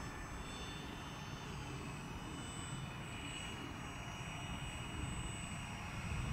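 Radio-controlled motor glider's pusher propeller and motor running as the model flies past, a steady high whine whose pitch shifts slightly partway through, over a low rumble.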